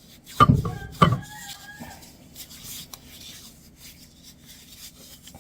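Hands rubbing together with a handful of dry flour, scrubbing off sticky biscuit dough of shortening and buttermilk. Two louder scrapes come in the first second, with a short squeak just after, then softer rubbing.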